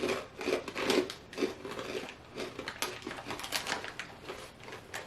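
Chewing a crispy, cereal-like puffed snack: a rapid, irregular run of crisp crunches.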